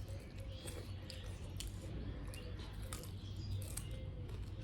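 Close-miked eating sounds of someone chewing fried chicken on the bone: irregular small wet clicks and smacks, over a steady low hum.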